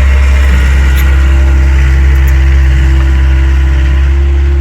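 Takeuchi TL26 skid steer's diesel engine running steadily at a loud, constant pitch.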